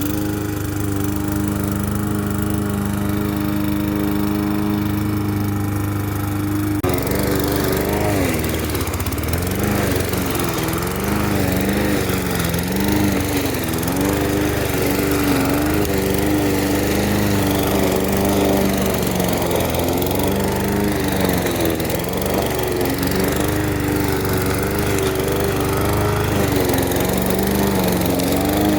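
Lawn mower engine running, steady at first; about seven seconds in the sound changes abruptly and the engine pitch then rises and falls over and over as it mows.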